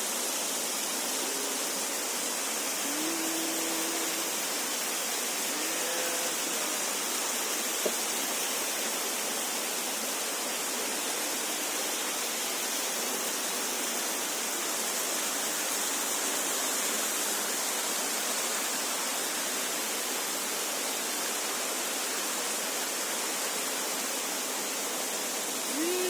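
Waterfall rushing in a steady, even roar of falling water, with a single sharp click about eight seconds in.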